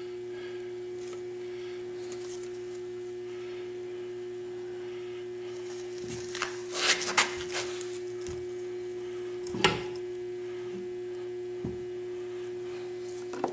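Light clanks and scrapes of a cast-iron Ingersoll Rand 242 compressor cylinder being handled against the crankcase flange and its fiber gasket, with the sharpest knock about ten seconds in. A steady hum runs underneath.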